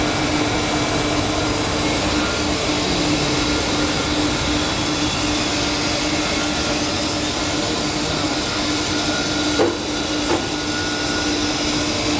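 Horizontal foam splitting machine running steadily while it splits PE foam sheet: a constant hum over dense machine noise, with two brief knocks near the end.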